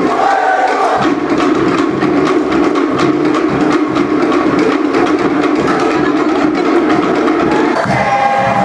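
Cook Islands drumming: a fast, driving beat on wooden slit log drums (pate). Near the end it cuts to singing.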